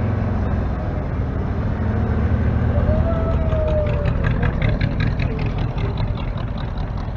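Vehicle engines running close by: a steady low engine rumble eases off about three seconds in as a 1930s pickup truck drives slowly past.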